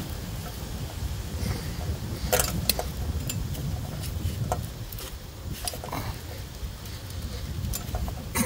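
Wind buffeting the microphone in a steady low rumble, with a few light clicks and knocks from hands working a rubber hose onto a fitting behind a car radiator, about two and a half seconds in and again near the middle.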